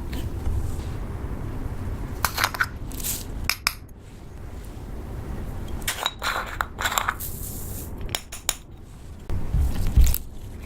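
Slime being worked by hand, making short crackles and clicks in irregular clusters over a steady low rumble, with the loudest snap near the end.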